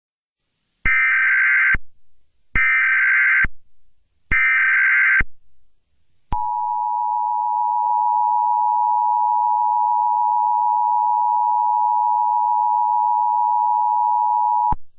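Emergency Alert System header: three short bursts of warbling data tones, each about a second long, then the two-tone EAS attention signal sounding steadily for about eight seconds before cutting off suddenly. This is the sequence that opens an emergency alert, here a shelter-in-place warning.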